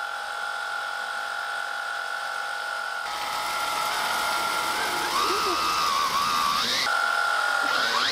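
Electric motors driving 3D-printed gear pumps, running with a steady high-pitched whine as they pump water. For a few seconds in the middle the whine wavers and shifts in pitch, then settles again.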